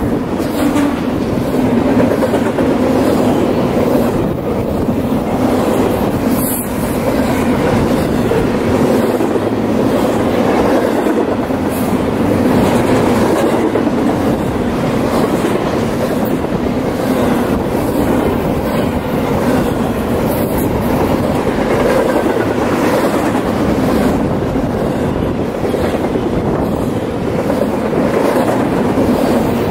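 BNSF double-stack container train's freight cars rolling past close by: steel wheels running on the rails, a steady, loud, unbroken rolling noise.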